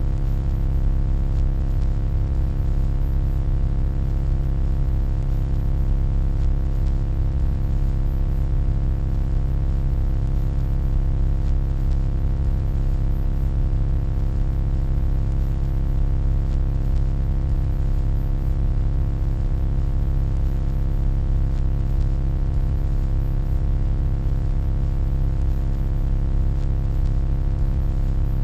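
Steady electronic hum: a deep, unchanging drone with a stack of steady tones above it and a faint hiss, without pauses or changes.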